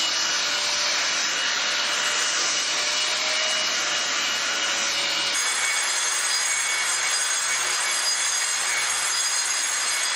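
A power tool running steadily, with an abrupt change in its sound about five seconds in.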